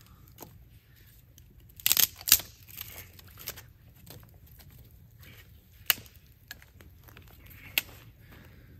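Scattered sharp snaps and crackles of small sticks being handled and laid on the smouldering coals of a log cooking fire, the two loudest close together about two seconds in and single sharper pops later on.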